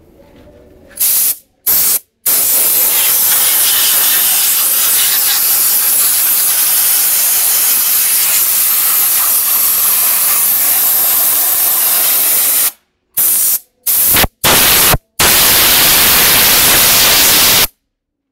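Compressed air hissing as it blows dust out of an open, very dirty desktop computer case. It comes in blasts that start and stop sharply: two short ones, a long one of about ten seconds, three short ones, then a final one that cuts off near the end.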